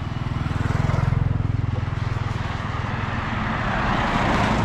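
A motorcycle passing close, its engine's fast low pulsing loudest about a second in, then a pickup truck driving past, the rush of its tyres on the road swelling to a peak near the end.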